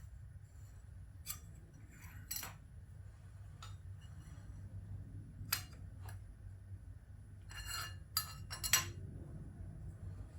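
Metal parts and tools clinking and knocking as they are handled and set down on a milling machine's steel table: a few separate sharp clinks, then a quick cluster of them near the end, over a steady low hum.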